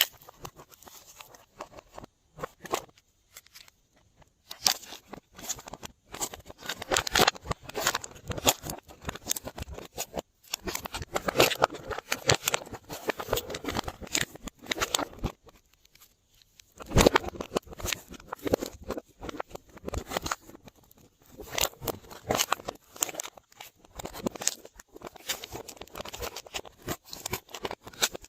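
Glossy slime being worked by hand, with dense sticky clicks and crackles coming in bursts and short pauses between them.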